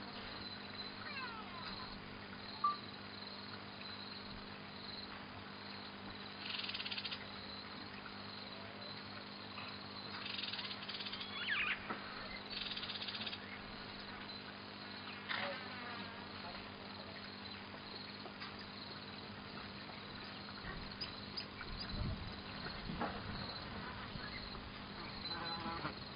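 Bush ambience: insects buzzing in short spells and a few scattered bird calls, over a steady low hum.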